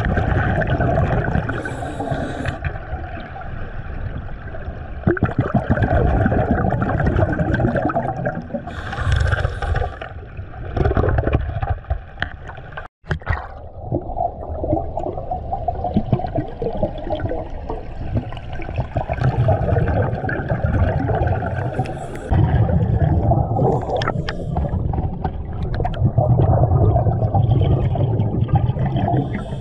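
Turbulent river water churning and bubbling over rocks, heard underwater: a steady, heavy rumbling wash with brief hissing surges of bubbles now and then. The sound cuts out for a moment about thirteen seconds in.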